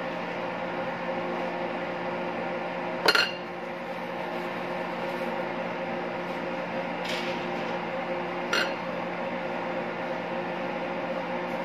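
Steady hum of kitchen machinery, with a metal spoon clinking sharply against the counter about three seconds in and two lighter clicks later.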